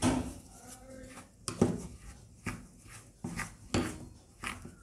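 Plastic spoon scraping and knocking against the sides of a glass bowl while stirring a thick, pasty powder mixture, in short strokes at uneven intervals, about seven in all.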